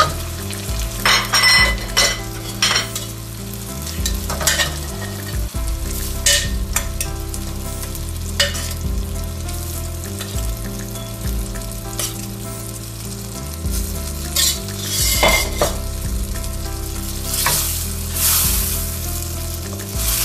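Boiled dried peas and onion-tomato masala sizzling in a stainless steel pan while a wooden spoon stirs them, with repeated short scrapes and knocks of the spoon against the pan. The sizzle swells louder near the end. A low steady hum runs underneath.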